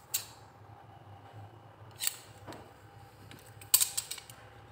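Japanese tailor's shears being handled, their blades clicking: a click at the start, another about two seconds in, and a quick run of clicks near the end.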